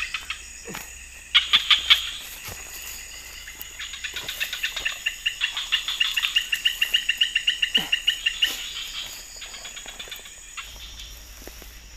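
Wild animal call: a fast, evenly pulsed high-pitched trill, with a loud short burst about a second and a half in and a long run of pulses from about four to eight and a half seconds, fading near the end.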